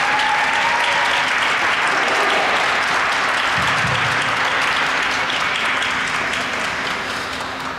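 Audience applauding, steady clapping that starts to die down over the last couple of seconds.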